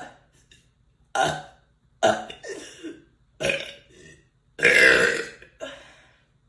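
A person burping again and again: five or six separate burps, with short gaps between them. The longest and loudest comes about four and a half seconds in.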